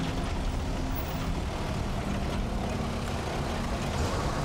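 Engine of an open 4x4 vehicle running steadily as it drives.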